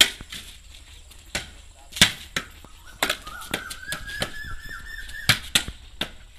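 A tennis ball thrown against a wall and bouncing on a stone floor: a series of sharp hits, the loudest at the start and about two seconds in. A faint rising, chirping trill runs between about three and five seconds in.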